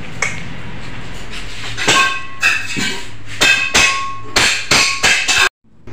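A series of about ten hammer strikes that ring like metal, roughly three a second. They start about two seconds in and stop abruptly near the end.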